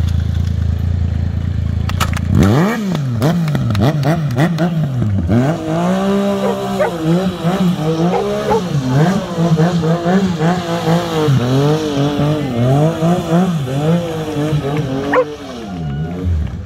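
Stunt motorcycle engine running low and steady, then revved up and down again and again in quick succession, the pitch climbing and falling, before it drops back near the end.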